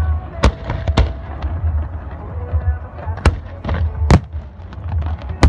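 Aerial fireworks shells bursting overhead: five sharp booms, irregularly spaced, over a steady low rumble of further explosions.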